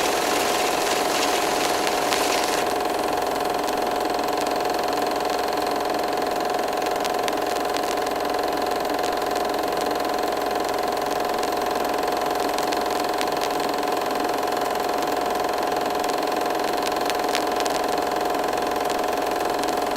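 Vintage 35mm film projector running: a steady mechanical whir with a constant humming tone and a few faint clicks.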